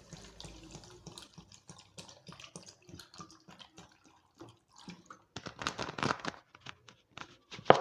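Cold water poured over cut lemons and peaches in a jar, splashing and dripping in short irregular spurts, with a fuller splash about two-thirds of the way through and a couple of sharp clicks near the end.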